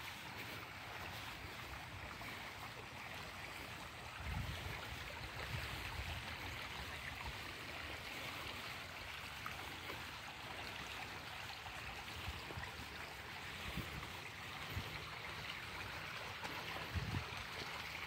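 Shallow creek running over rocks: a steady rush of flowing water, with a few brief low rumbles about four seconds in and again near the end.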